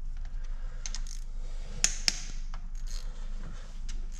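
Ratchet wrench clicking and metal tools clinking while camshaft bearing cap bolts are loosened, with irregular sharp clicks, two louder ones about two seconds in, over a steady low hum.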